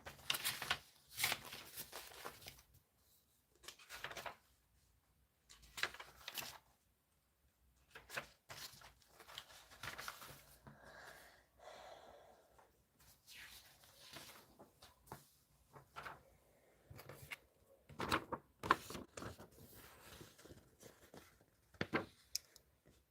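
Faint, scattered rustling and clicking of things being handled close to the microphone, with no speech.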